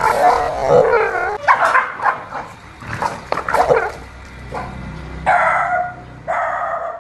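Dog barking and yipping in quick, uneven bursts at a stuffed toy tiger, then two longer cries about five and six seconds in.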